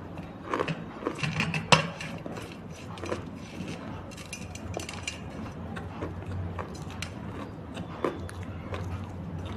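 Close-miked crunching of something brittle: sharp crackles and snaps, thick in the first two seconds, then scattered clicks, over a steady low hum.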